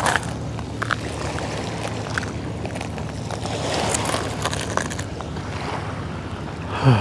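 Footsteps crunching now and then on dry gravel and shells, over a steady low hum, with a brief falling sound near the end.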